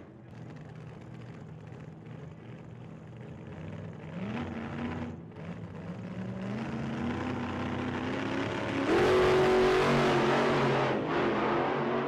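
A motor vehicle engine accelerating, its pitch rising in steps about four, six and a half and nine seconds in. It gets steadily louder and is loudest from about nine to eleven seconds, with a brief dip near eleven seconds.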